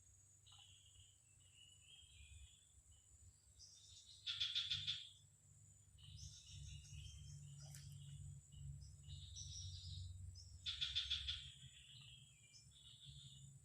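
Faint wild birds calling, with two louder trilling calls about four and eleven seconds in, over a steady high insect drone.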